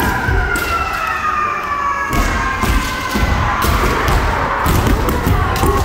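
Kendo practice: a long, drawn-out kiai shout that slowly falls in pitch, over repeated thuds of bare feet stamping on the wooden floor and sharp cracks of bamboo shinai strikes from many pairs sparring at once.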